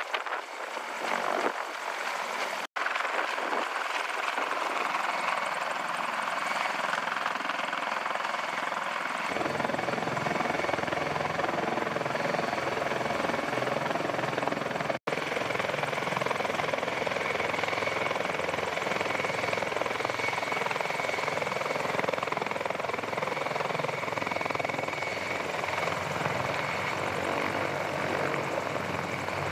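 CH-53E Super Stallion heavy-lift helicopter running close by, its rotors turning: a steady, loud rush of rotor and three-turbine engine noise with a high whine. About a third of the way in, the sound jumps to a deeper, fuller rumble, and it cuts out for an instant twice.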